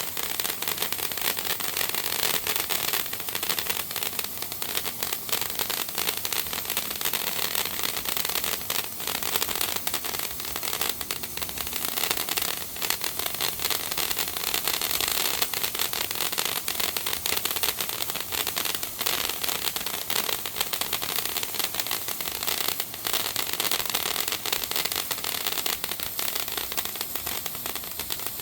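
A waterfall-type novelty firework burning with a steady hiss and dense crackle that goes on without a break.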